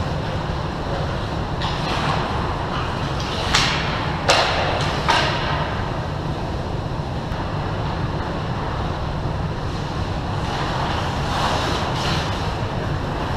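Ice hockey skate blades scraping the ice in short sharp hisses, three in quick succession about three to five seconds in and a softer one near the end, over a steady low rumble.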